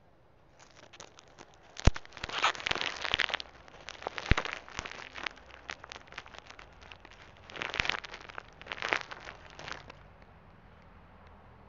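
Plastic wrapping crinkling and crackling close to the microphone in irregular bursts with sharp clicks, loudest from about two to three seconds in and again around eight to nine seconds.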